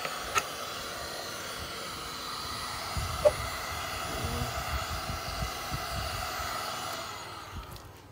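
Black+Decker heat gun blowing steadily at a plastic jug to heat it, fading out near the end. A sharp knock about three seconds in, with a few soft thuds after it.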